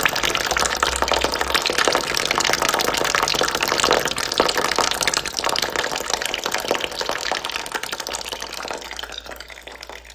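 A steady stream of water trickling and splashing into water in a bucket, growing gradually fainter over the last several seconds.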